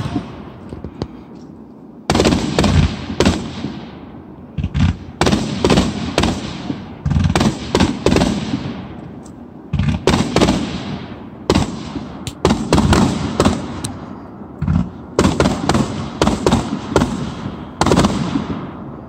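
Fireworks display: volleys of sharp bangs from aerial shells bursting overhead, coming in clusters every couple of seconds, each volley trailing off before the next.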